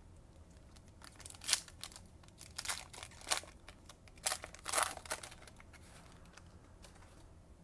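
Foil wrapper of a trading card pack crinkling as it is opened by hand, in a run of sharp crackles between about one and five seconds in.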